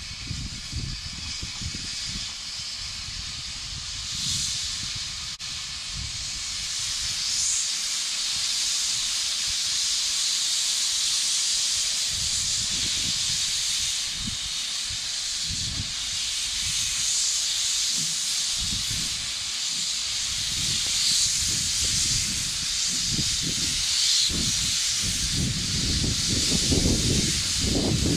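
1916 Hudswell Clarke steam locomotive hissing steadily, steam escaping from its open cylinder drain cocks as it creeps in, the hiss growing louder toward the end. An uneven low rumble runs underneath.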